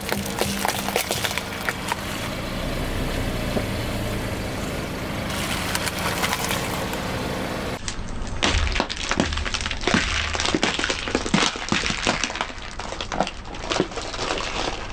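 Car tyre rolling over plastic toy eggs and crushing them: a run of sharp cracks and crunching, densest in the second half, over the low steady sound of the car.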